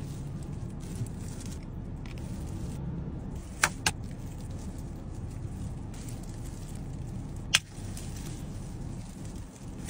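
Steady low hum inside a car cabin, with sharp plastic clicks from a clear takeaway food tub being handled: two quick clicks a little before four seconds in, and one more near eight seconds.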